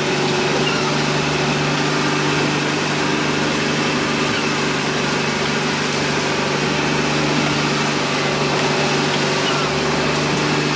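Boat engine running steadily at low speed, a constant, even hum.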